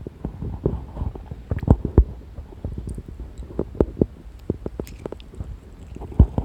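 A person's stomach rumbling close up: irregular gurgles and small pops, some sharper than others.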